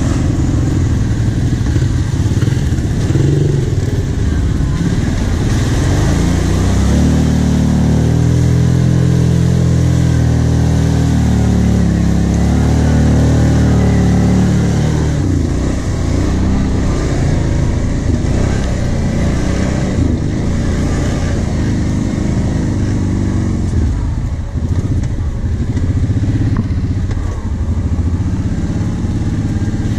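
Kawasaki KVF 750 Brute Force ATV's V-twin engine running as the quad is ridden over a muddy track. It pulls harder for several seconds in the middle, its pitch rising and then falling back to a steadier run.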